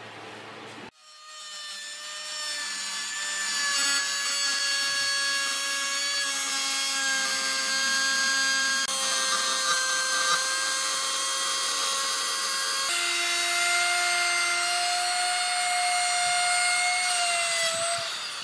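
DCA electric router running at full speed and cutting along the edge of a wooden board: a steady high whine that starts about a second in and builds over the next few seconds. Its pitch shifts slightly higher about two-thirds through, and it winds down with a falling whine near the end.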